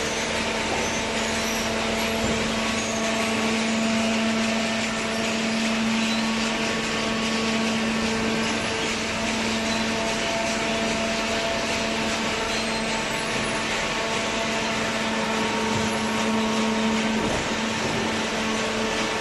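Hydraulic baler's electric motor and hydraulic pump running steadily: an even machine hum with a steady whine.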